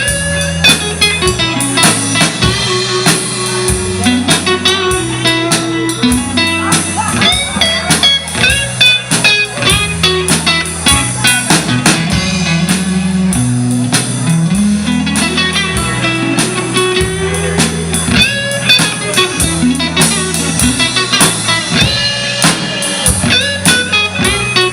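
Instrumental break of a slow country-blues song: a guitar plays a lead line with bent notes over a stepping bass line and a drum kit.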